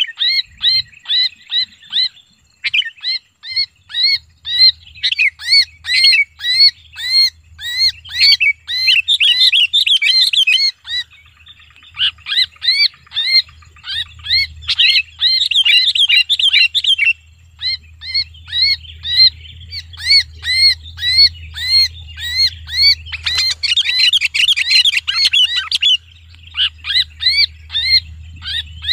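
Sooty-headed bulbul held in the hand giving distress calls: harsh notes repeated rapidly, about three a second, breaking into denser, frantic runs several times. This is the screaming of a bird that is pinched and held.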